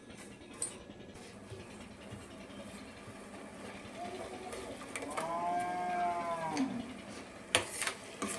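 A drawn-out animal call, rising then falling in pitch for about a second and a half, over a faint quiet background. A few sharp knocks follow near the end.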